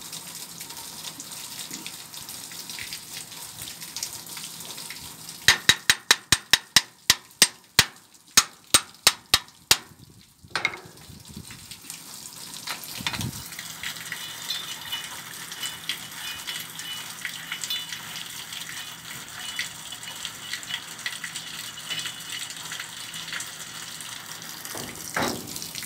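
Steady rushing, water-like noise, broken about five seconds in by a quick run of sharp clicks or taps, about four a second, for some four seconds, followed by a couple of single knocks.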